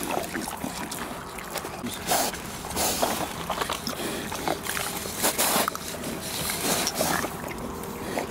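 Pigs chewing strawberries close up: an irregular run of munching and smacking sounds.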